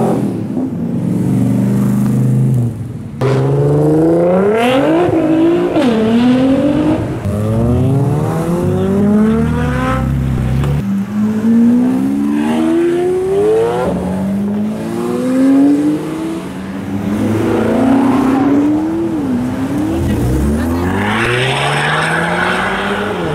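Sports cars accelerating hard away one after another. Their engines rev up through the gears, the pitch climbing and then dropping at each shift, several times over.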